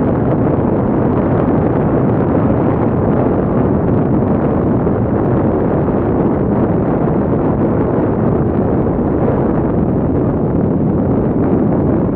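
Avro Vulcan XH558's four Rolls-Royce Olympus turbojets running at display power as the delta-wing bomber banks past overhead: a loud, steady, deep jet rumble.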